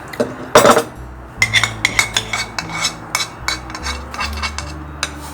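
Cutlery and dishes clinking and knocking on a table in a quick, uneven run of clicks, the loudest knock just over half a second in.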